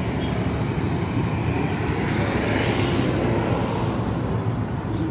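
Road vehicle engines and traffic noise running steadily, with a broad swell of sound around the middle.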